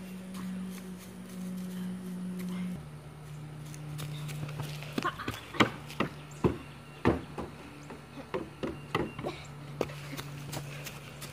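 Footsteps on wooden deck stairs: a run of sharp, irregular knocks in the second half. Under them runs a steady low hum that drops in pitch a few seconds in.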